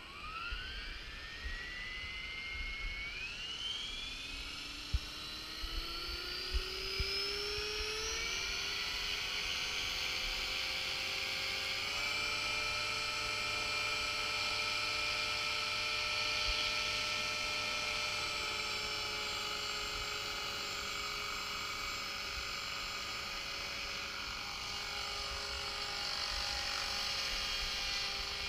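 Electric Align T-Rex 450 RC helicopter spooling up. The motor and rotor whine rises in pitch over about the first eight seconds, then holds steady at flying rotor speed. There are a few light ticks around five to seven seconds in.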